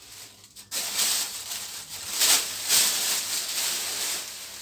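Thin black plastic shopping bags rustling and crinkling as they are handled and pulled open, starting about a second in.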